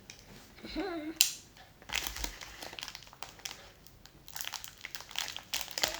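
Slime being squeezed and worked by hand, giving a run of crackly, sticky clicks and pops.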